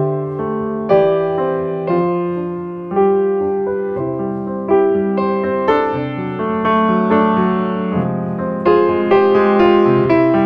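Background piano music: a slow, gentle tune of struck notes and chords, each fading away before the next.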